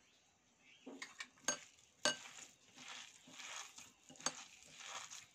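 A spoon mixing a thick, damp mixture of soaked sabudana and mashed potato in a bowl, starting about a second in: soft scraping with sharp clinks of the spoon against the bowl.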